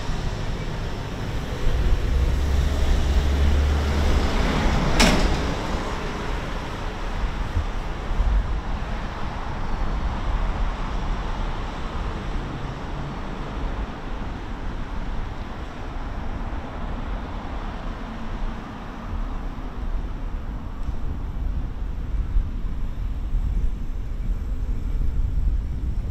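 Night street traffic: a car passing on the road alongside over a steady low rumble, louder in the first few seconds, with one sharp click about five seconds in.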